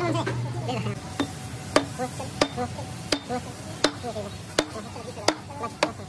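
Sledgehammer striking a wooden block held against the steel cylinder of a hydraulic breaker, driving the cylinder into its housing. About seven sharp knocks come evenly, roughly two-thirds of a second apart, starting about a second in.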